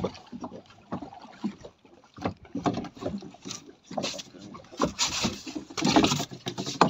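Irregular knocks and thuds on a small boat's deck with rustling of waterproof clothing, as anglers move about and bring a caught fish aboard; the rustling and knocking grow louder about five seconds in.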